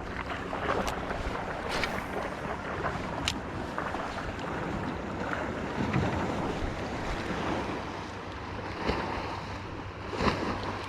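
Wind buffeting the microphone and water lapping around a small fishing boat, with a faint steady low hum and a few light knocks.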